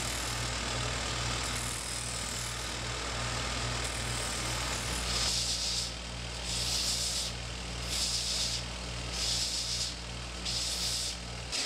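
Combination belt and disc sander running with a steady motor hum while a square wooden blank is ground round. From about halfway on, the blank is worked on the belt in repeated strokes, each giving a rasping surge about once a second. The hum cuts off just before the end.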